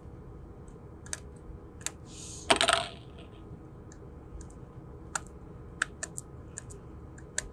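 Scattered small clicks and ticks of metal tweezers picking at glue over the battery-wire solder joints inside an opened iPhone, with one louder scraping rustle about two and a half seconds in.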